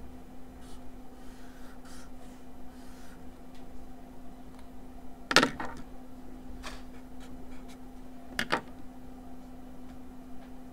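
Faint scratching of a marker drawn across paper, then two short, sharp taps about three seconds apart, over a steady low electrical hum.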